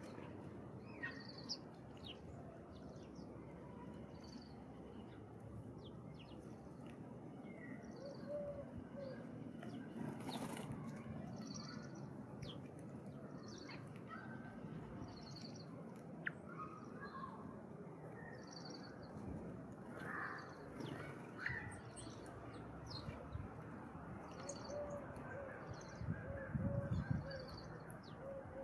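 Faint wild birdsong: one bird repeats a short high chirp about every second and a half, with a few other scattered calls. Near the end come a few louder low rustling thumps.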